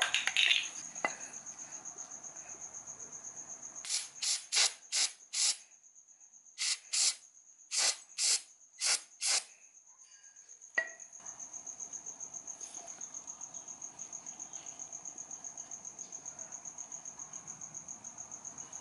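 Aerosol can of brake cleaner sprayed onto a differential drain plug in short hissing spurts, about ten of them in two quick runs. A steady high, pulsing tone runs underneath.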